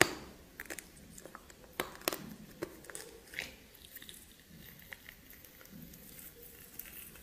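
A person biting and chewing steamed snake meat. It opens with one sharp crunch, the loudest sound, then a run of smaller crunches and clicks over the next few seconds.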